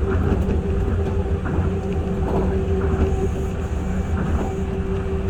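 Tokyo Monorail 1000-series train running along the guideway: a steady low rumble with a constant hum, and soft knocks roughly once a second.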